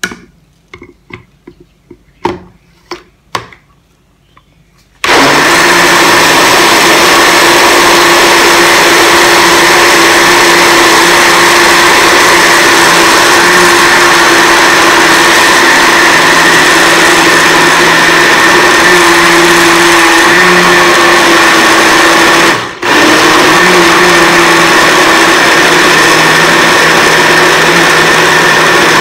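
Countertop blender puréeing cooked potato and spinach soup. First come a few clicks and knocks as the jar is set on the base, then the motor starts about five seconds in and runs steadily and loudly. It cuts out for a moment about three-quarters of the way through and starts again at once.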